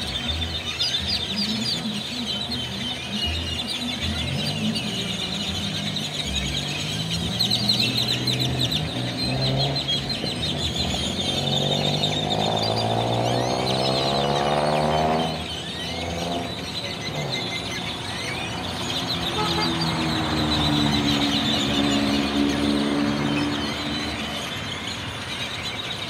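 Hundreds of tordos (blackbirds) chattering together in a roost tree, a dense mass of overlapping chirps and calls. Road traffic passes beneath it: an engine rises in pitch from about ten to fifteen seconds in and cuts off, and another vehicle drones near the end.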